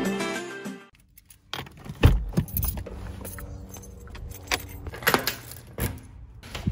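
Intro music ends within the first second. After a brief hush, a bunch of keys jangles and clicks repeatedly while a front door's deadbolt is unlocked.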